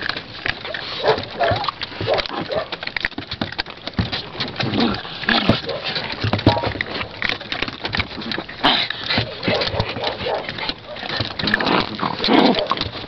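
A litter of puppies eating together from a metal bowl, a dense, irregular run of small smacking and clicking sounds.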